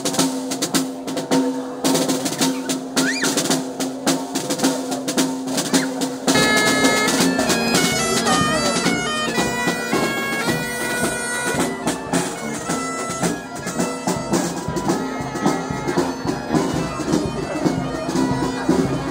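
Bagpipes playing with a snare drum beating along. The drones hold a steady note, and about six seconds in the chanter melody comes in and the music gets louder.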